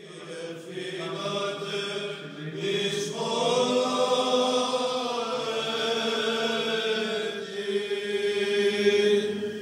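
Byzantine-style Orthodox chant: voices sing long held notes that move slowly to a new pitch twice, fading in at the start.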